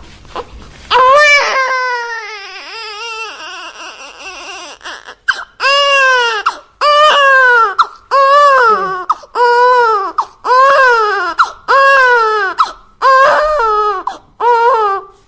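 Infant crying: a long wail starting about a second in that falls away over several seconds, then a steady run of cries about one a second, each rising and then falling in pitch.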